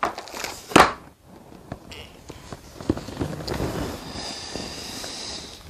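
A plastic-wrapped metal lightsaber hilt being handled: one sharp knock just under a second in, then small clicks and soft rustling of the plastic wrap.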